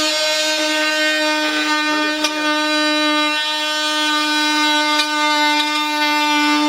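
Car horn blaring continuously as one steady, unbroken tone.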